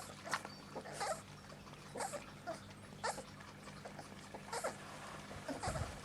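Young Kleine Münsterländer puppies whimpering and squeaking in short bursts, about one or two a second. A low rumble comes in near the end.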